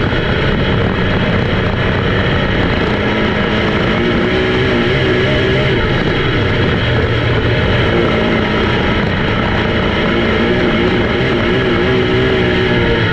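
Race car engines running on the track, a dense, loud blend whose pitch rises and falls continuously as the cars go around.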